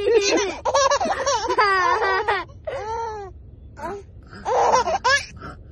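Baby laughing in high-pitched squealing runs of quick pulses, then a quieter stretch and another loud burst of laughter near the end.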